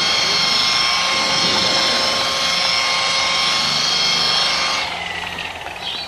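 A loud, steady mechanical whine with several high tones cuts off sharply about five seconds in. Short bird chirps follow near the end.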